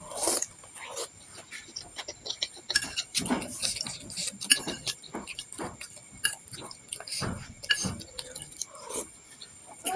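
Close-up mouth sounds of someone eating bakso meatballs: wet chewing and lip smacks in an irregular run of short clicks.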